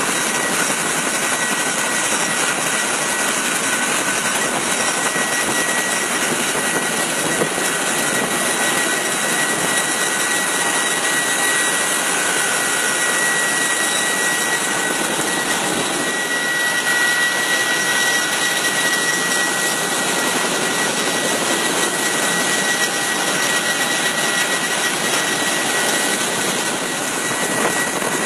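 Military aircraft turbine engines running steadily, a constant noise with a high, steady whine over it.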